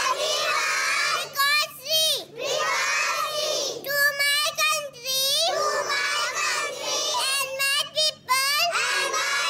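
A young girl's voice at a microphone, reciting a rhyme in a sing-song, half-sung voice.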